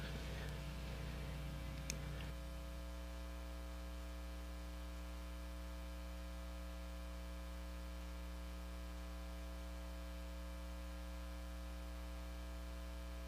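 Steady electrical mains hum in the audio feed, made of several fixed tones, with a single sharp click about two seconds in.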